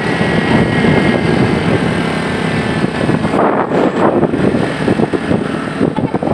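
Motorcycle running at road speed, heard from the seat, with wind rushing over the microphone. The noise is steady at first and grows more gusty and uneven from about halfway through.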